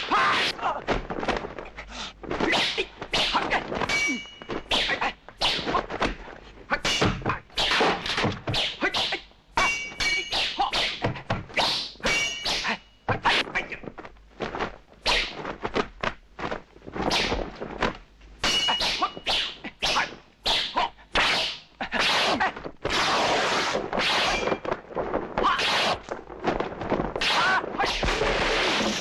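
Sword fight: a fast, unbroken run of blade clashes and blows, sharp metallic clangs, some ringing briefly, mixed with dull whacks and thuds.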